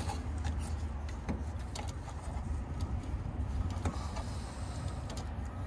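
A steady low rumble, with scattered light metallic clicks and scrapes as a hand swaging tool is worked onto a copper refrigerant line.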